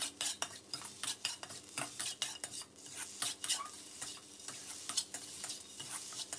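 Metal spatula scraping and clacking against a steel wok in quick, irregular strokes as chopped scrambled egg is tossed, over a light sizzle of the hot pan.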